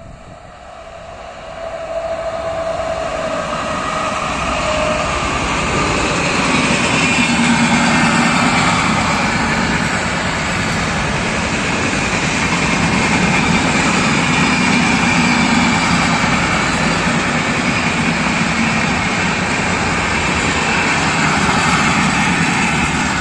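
Express passenger train with red LHB coaches passing at speed. A steady rumble and rush of wheels on rail grows louder over the first few seconds as the train nears, then holds as the coaches run by.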